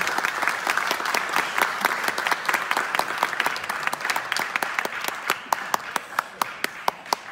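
Audience applauding. The dense applause gradually dies down, thinning to a few scattered, distinct claps near the end.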